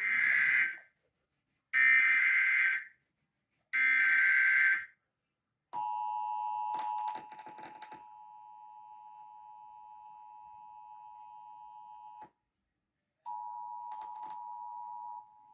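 Emergency Alert System Required Monthly Test signals: three buzzing bursts of digital header data, about a second each and a second apart, mark the start of an alert. Then the two-note attention signal sounds steadily for about six seconds, breaks off for a second and returns for about two more.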